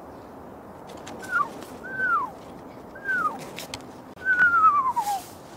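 Owl calling: three short whistled notes, each sliding down in pitch, then a longer wavering whistle that falls steadily near the end.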